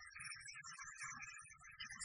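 A male reciter chanting Quran verses in a melodic recitation style, faint.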